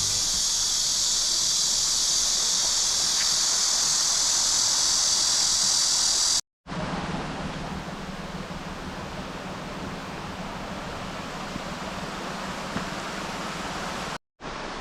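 Mountain valley stream rushing steadily, in two shots joined by an abrupt cut about six and a half seconds in. The first sounds brighter and hissier; the second is quieter, with a lower rumble.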